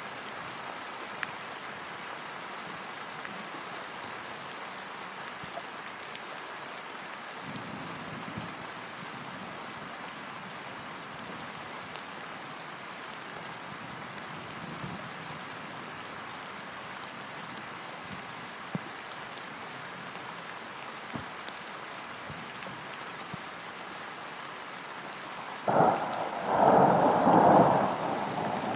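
Steady rain falling on a lake's surface, with a faint low rumble of thunder about a third of the way in. Near the end a loud thunderclap breaks in suddenly and rumbles on in surges for a few seconds.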